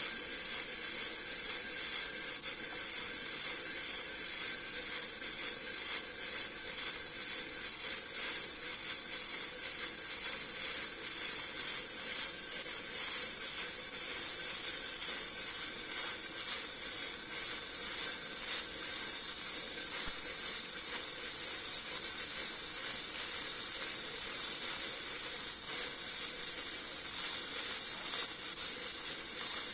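Electric arc welding: the arc gives a steady, unbroken hiss.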